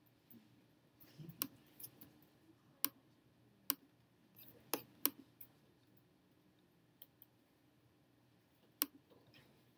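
Faint, irregular computer mouse clicks: sharp single clicks, some in quick pairs, spread over the first half, then a few sparse ones.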